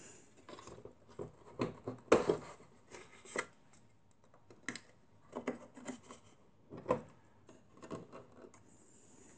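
Irregular clicks and light knocks of hard plastic being handled, as a phone holder is taken off and repositioned higher for the next round of photos.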